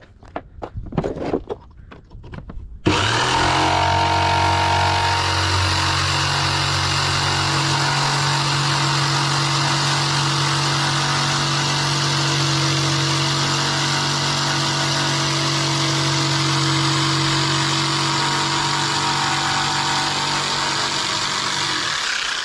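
A few light knocks, then about three seconds in an electric motor switches on abruptly and runs steadily for about twenty seconds, a hum with a strong hiss over it.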